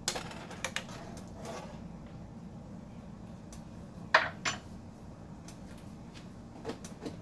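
A cooking utensil clinking and knocking against a pot: a few light clinks at first, then two sharper knocks about four seconds in, over a steady low hum.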